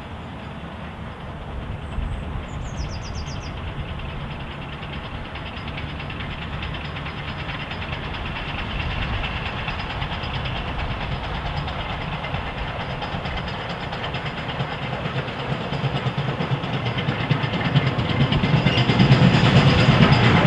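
Steam locomotive, an LMS 8F 2-8-0, working a passenger train and approaching, its running growing steadily louder, with the low rumble strongest near the end.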